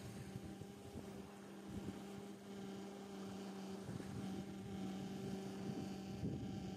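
A steady low hum with fainter higher overtones, holding one pitch and growing slightly louder toward the end.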